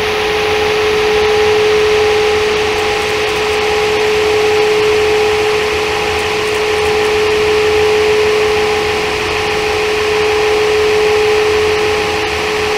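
Steady droning hum and hiss with a constant mid-pitched tone and a fainter, higher tone that pulses about once a second.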